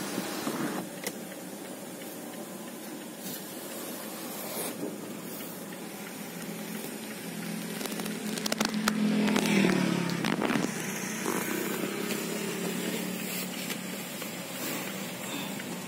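Steady hum and hiss in a parked car's cabin, swelling louder for a few seconds around the middle, with a few light clicks.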